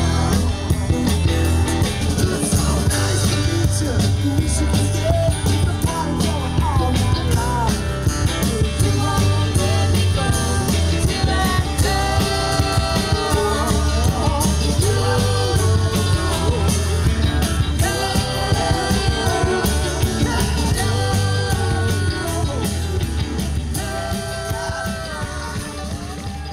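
Rock song with singing over a steady beat, fading out near the end.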